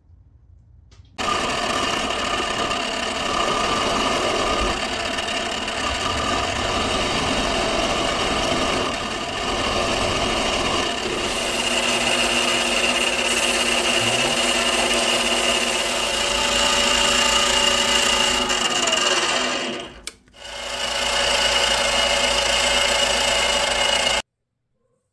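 Metal lathe running, turning a steel ring blank on an arbor against the cutting tool: a steady machine whine over a noisy hiss. It starts abruptly about a second in, drops out briefly about four-fifths of the way through, and cuts off suddenly near the end.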